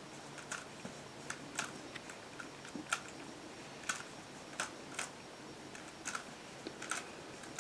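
Plastic Rubik's Cube being turned by hand, its layers snapping round in about a dozen irregular clicks, one or two a second.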